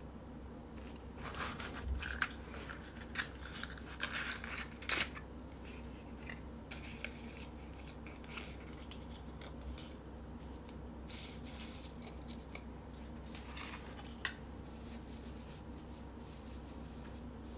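A small paper box being handled and slid open: crisp papery scrapes and ticks, busiest from about a second in to five seconds in, then sparser, fainter crinkles of shredded paper cushioning being lifted out.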